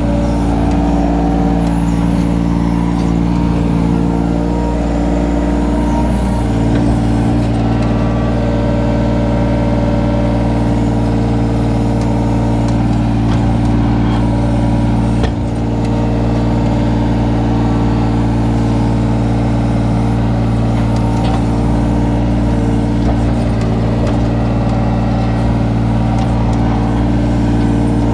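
Kobelco SK17SR mini excavator's diesel engine running steadily at working revs while the arm and bucket dig, heard close from the operator's seat. A brief knock comes about halfway through.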